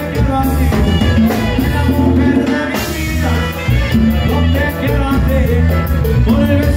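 Live norteño band playing: button accordion and saxophones over a twelve-string bajo sexto, electric bass and drum kit, with a steady bass line and a regular drum beat.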